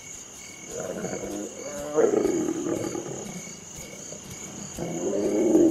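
Lions giving two drawn-out low growling calls, one about a second in and another near the end, over the steady chirping of crickets at dusk.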